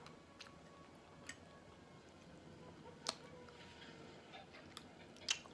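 Quiet eating: a fork clicks lightly against a plate about five times, with soft chewing between.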